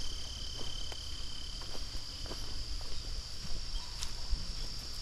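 Insects calling in a steady, high-pitched drone, with a second, lower steady tone that stops about two seconds in. Scattered soft clicks and a low rumble lie underneath.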